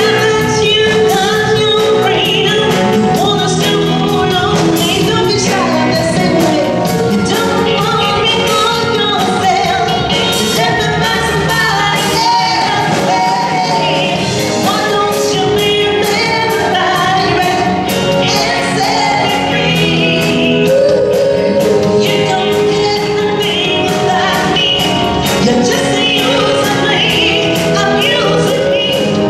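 Female singers performing a song live, a lead voice with other singers joining in, backed by a live band with drums, guitar and keyboards.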